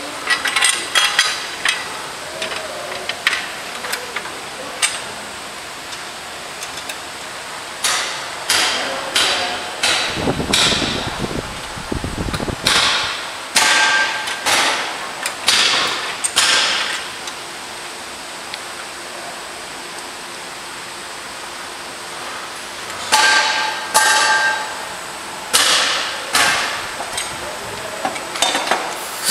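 Metal parts and hand tools clanking as components are fitted onto a motorcycle on an assembly line: irregular sharp metal knocks, some ringing briefly, with a couple of seconds of low rushing noise about ten seconds in.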